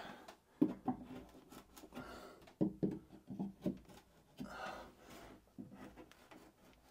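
Screwdriver tip scratching and tapping on plywood as it marks screw-hole positions through a wooden mounting plate: several short, sharp clicks, a pair about half a second in and a cluster from about two and a half to four seconds in.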